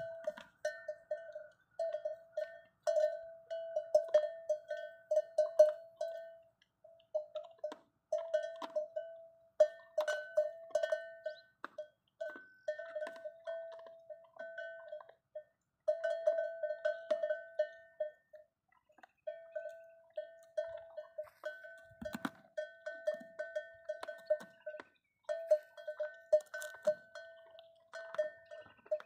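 A camel's neck bell clanking in irregular runs of quick strikes as the camel works its head, with a few short pauses. Sharp clicks from the camels chewing bone run through it, a habit the uploader puts down to pica from a lack of salt and minerals.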